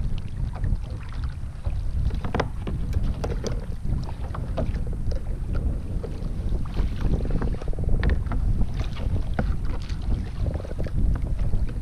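Wind buffeting the microphone in a steady low rumble, with small waves lapping and slapping irregularly against the hull of a sit-on-top kayak.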